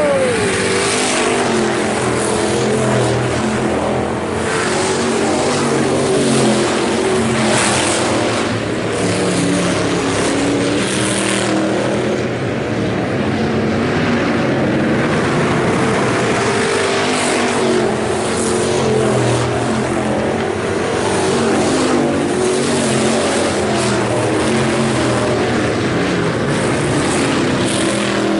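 IMCA Hobby Stock race cars running laps on a dirt oval, their engines revving and rising and falling in pitch as they pass, loud and continuous.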